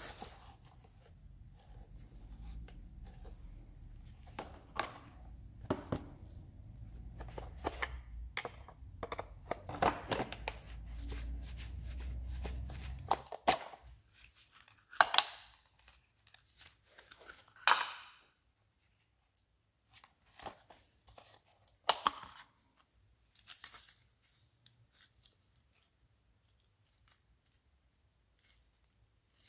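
Plastic parts of a Yamaha Mint scooter's rear tail-light and turn-signal housing scraping, creaking and clicking as they are worked loose by gloved hands, with a few sharp snaps in the second half. A low rumble sits under the first half and stops about halfway.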